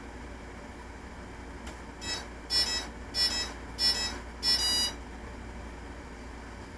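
Hobby King Nova quadcopter sounding a series of five short electronic beeps, the last held longer, over a steady background hiss; tones of the kind the quadcopter gives while starting up and arming its motors.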